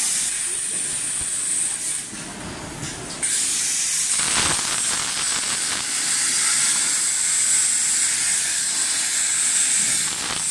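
Plasma torch of a CNC plasma cutting table cutting steel sheet: a loud, steady hiss of the plasma arc and its gas jet. It cuts out about two seconds in and starts again about a second later.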